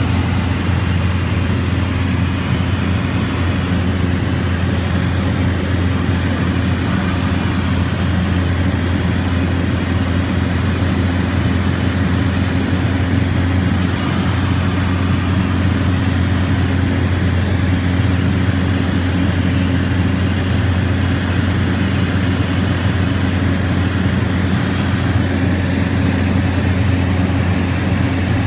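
Scottish Aviation Bulldog's Lycoming IO-360 flat-four engine and propeller droning steadily in flight, heard from inside the cockpit.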